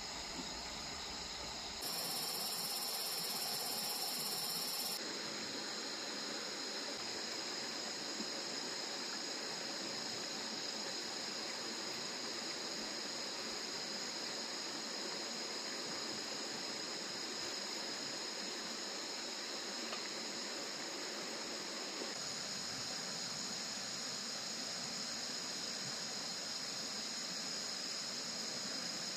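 Insect chorus at night, a steady high-pitched chirring that goes on without a break.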